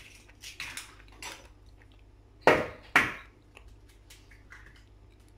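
Eggs being cracked into a mixing bowl: a few light clicks, then two sharp knocks about half a second apart as an eggshell is struck against the bowl's rim.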